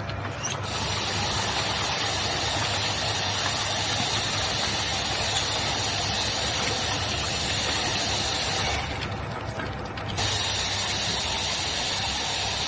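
Dishwasher powder capsule packaging machine running: a dense, steady mechanical clatter over a low hum, easing for about a second around three quarters of the way through before picking up again.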